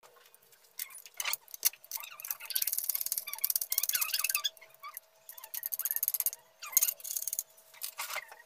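Wooden pieces being scraped and knocked as they are worked by hand: irregular bursts of scraping with sharp clicks.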